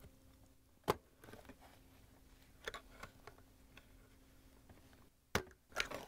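Sharp clicks and snaps of a small flathead screwdriver prying push-on wire terminals off a dishwasher main control board, a few scattered over the stretch with the loudest two near the end.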